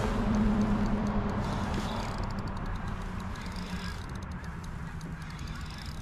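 Wind buffeting the microphone, with a low steady hum that fades out over the first few seconds.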